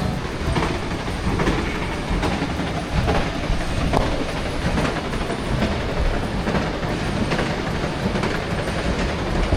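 Rail-borne theme-park ride vehicle running along its track: a steady rumble with repeated clacks of wheels over the rails.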